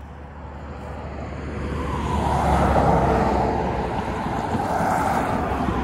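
Road vehicle going by on the highway: tyre and engine noise swells over a couple of seconds, then holds.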